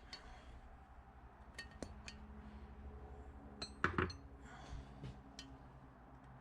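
Small steel valvetrain parts from a Honda H22 cylinder head clinking and tapping as they are handled and set down, with a louder metallic clatter about four seconds in.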